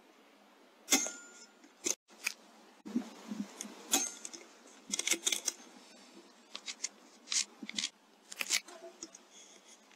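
Shots from a .22 PCP air rifle (Airmaks Krait L) fired at rats: sharp snaps, the loudest about a second in with a short ring-off, then more clicks and snaps scattered through the rest.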